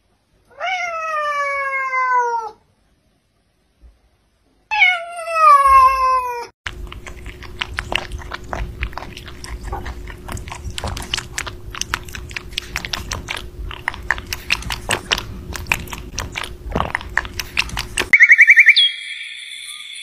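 Two long cat meows, each falling in pitch, the second louder. Then a rabbit chewing strawberries: a quick, crisp run of clicks over a faint steady hum. Near the end, music with whistle-like tones comes in.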